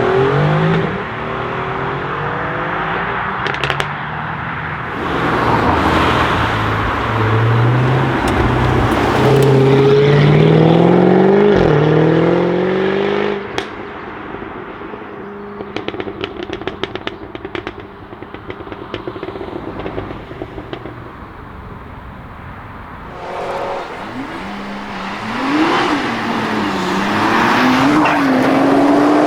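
Jaguar F-Type V8 R's 5.0-litre supercharged V8 accelerating hard, its pitch climbing. About halfway through it drops back to a quieter run with a rapid string of exhaust crackles and pops. In the last few seconds it accelerates again, the pitch rising and dipping with quick gear changes.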